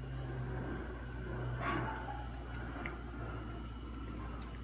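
Ramen soup simmering in a pot on a gas burner, with faint liquid drips and a low steady hum underneath.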